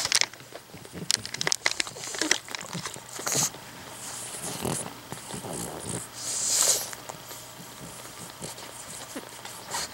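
Newborn pug puppies giving short wavering squeaks while the mother pug snuffles and licks over them, with small clicks and rustles.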